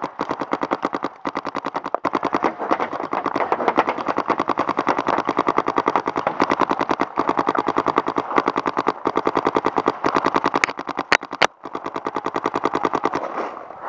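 Paintball marker firing in a long rapid, even string of shots, many per second, with two sharper cracks about eleven seconds in. The firing stops just before the end.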